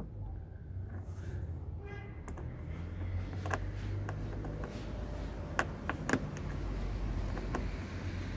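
A few sharp clicks and knocks, the loudest a little after the middle, over a low steady hum.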